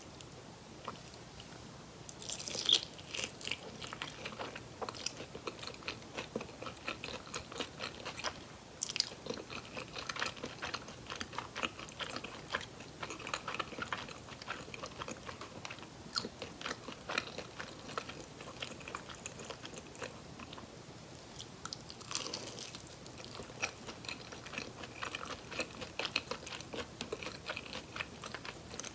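Close-miked bites into crispy fried chicken drumsticks, with loud crunches about two, nine and twenty-two seconds in and steady crunchy chewing in between.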